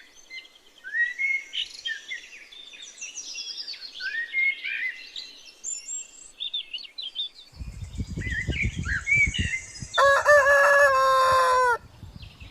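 Small birds chirp and tweet throughout in short rising and falling calls. About two-thirds of the way in, a low rumble joins them. Near the end a rooster crows once, a loud, held call of nearly two seconds and the loudest sound.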